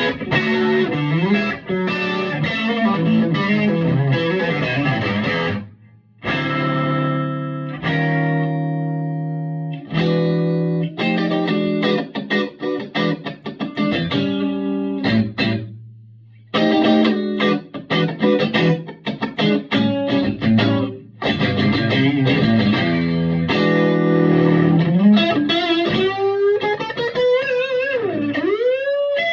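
Electric guitar on its neck single-coil pickup played through a Vintage Sound Amp. A run of chords and single notes, broken by short pauses a few times, ending with bent, wavering notes.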